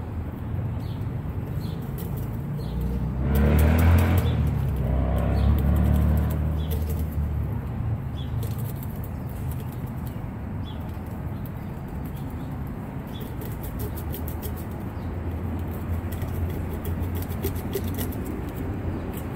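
A vehicle passing outside: a low rumble that swells from about three seconds in and fades out by about seven and a half seconds, over a steady low outdoor hum.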